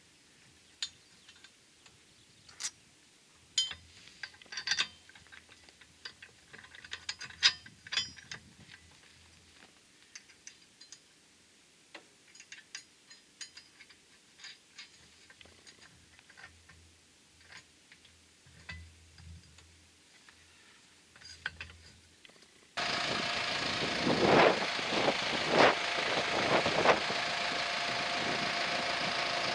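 Scattered light metallic clicks and taps, then, about three-quarters through, an arc welder strikes an arc and runs with a loud, steady crackling hiss.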